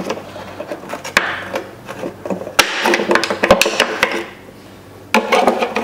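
Plastic clicks, knocks and rattling as twist-lock bulb sockets are turned counterclockwise out of a 2004 Chrysler Pacifica's plastic tail light housing. The sounds ease off briefly about four seconds in, then the clatter resumes near the end.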